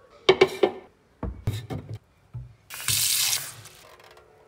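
A few sharp knocks and clatter as a clear jug is handled, then a kitchen tap running hard into the jug over a stainless steel sink for about a second.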